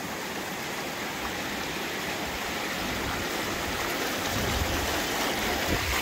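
Shallow rocky river rushing and splashing over stones, a steady hiss of flowing water that grows a little louder and deeper from about halfway through.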